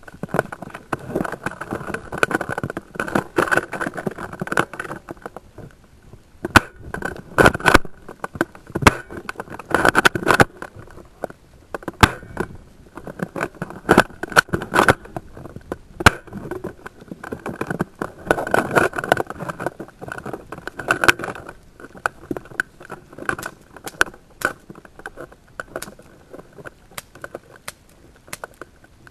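Airsoft players on the move: irregular spells of rustling, scuffing and rattling gear, each a few seconds long, with sharp clicks scattered through.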